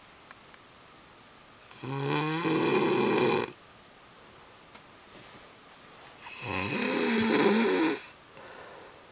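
A sleeping man snoring: two long, loud rasping snores about four and a half seconds apart, with quiet breathing between.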